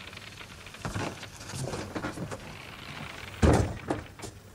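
Footsteps knocking on wooden ship's steps and deck boards, with one heavy thump about three and a half seconds in.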